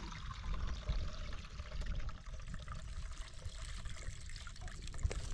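Thin liquid poured from a metal bowl into a plastic bowl: a steady splashing trickle.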